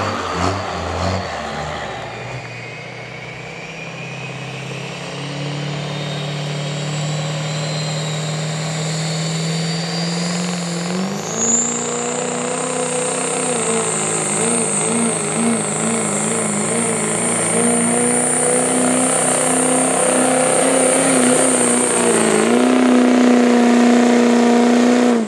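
Turbocharged diesel pickup truck engine at full throttle pulling a sled. A high turbo whistle climbs over the first ten seconds. The engine note rises, steps up about eleven seconds in, then holds and wavers under load until it cuts off suddenly at the end.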